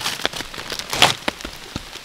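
Rain pattering steadily, with a clear plastic bag crinkling as it is handled; the loudest crinkle comes about a second in.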